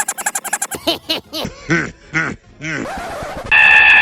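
High-pitched cartoon voice giggling in quick bursts, then a few separate cries. A loud, steady, high-pitched shriek starts about three and a half seconds in and is held.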